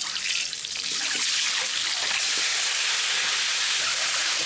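Peeled boiled eggs sizzling in hot mustard oil in a kadai, the sizzle building about a second in as they go into the oil and then holding steady.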